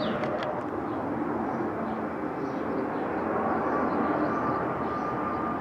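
Twin-engine jet airliner on approach with its landing gear down, its engines a steady rumble. A steady whine joins it about three and a half seconds in.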